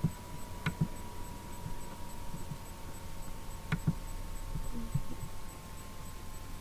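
Steady low electrical hum with a thin steady tone, broken by a few sharp clicks of a computer mouse and keyboard. The clearest clicks come near the start and again a little before four seconds in.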